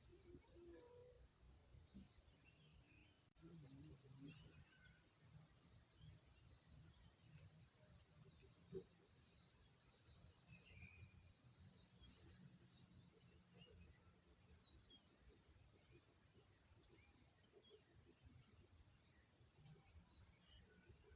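Faint, steady outdoor insect chorus: one continuous high-pitched chirring with no breaks, under a soft low rumble of breeze on the microphone.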